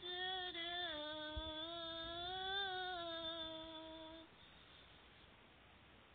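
A woman's singing voice holding one long note at the end of a line, wavering slightly in pitch, with no accompaniment heard. It stops about four seconds in, leaving only faint hiss.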